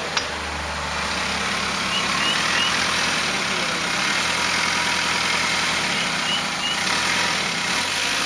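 1998 Toyota Camry running, a steady engine and vehicle sound with no distinct clunks standing out.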